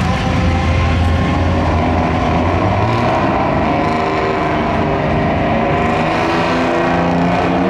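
Two diesel semi-truck tractors drag racing side by side at full throttle, their engines running loud and steady as they pull away down the strip.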